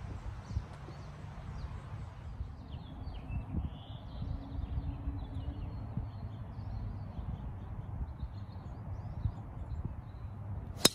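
Birds chirping over a low steady background, then near the end a single sharp crack as a golf club strikes a teed-up ball on a tee shot.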